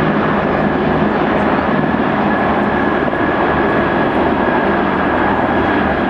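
A large formation of helicopters flying over: a steady, dense noise of rotors and turbine engines with a thin, steady high whine on top.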